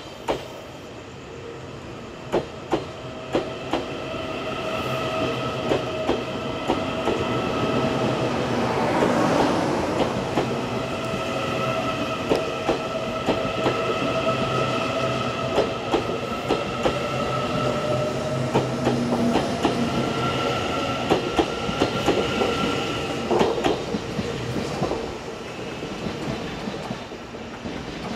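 Taiwan Railways EMU800 electric multiple unit pulling out of the station. Its wheels click over the rail joints, the clicks coming faster as it gathers speed, over a steady whine. The sound drops away near the end as the last car passes.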